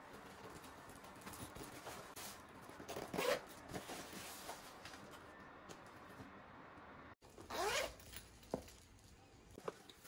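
Zipper of an insulated lunch bag being pulled shut in quick zips, about three seconds in and again near eight seconds, with the rustle of the bag's fabric and a few small ticks.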